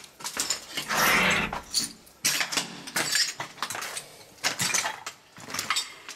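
Footsteps crunching over debris and clothing brushing against the camera: an irregular run of clicks, crunches and scrapes, with a louder rustling burst about a second in.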